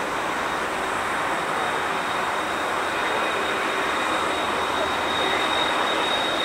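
Boeing 747-46NF freighter's four turbofan engines running at idle: a steady rushing roar with a thin high whine held on one pitch.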